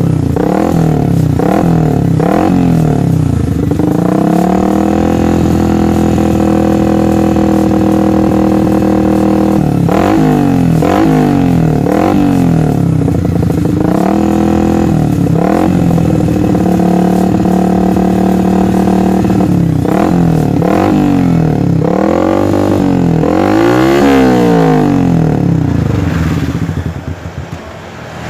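Yamaha New Vixion's 150 cc single-cylinder engine, otherwise stock, revving through an aftermarket DBS-style racing exhaust made in Purbalingga. It gives a run of quick throttle blips, holds the revs steady for several seconds, blips again, holds again, then gives a last run of blips before dropping back near the end.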